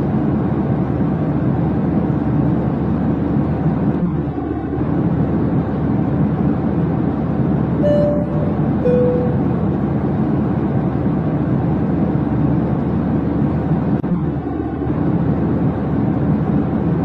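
Steady low rumbling drone, in a loop that repeats about every ten seconds, with a brief higher tone about halfway through.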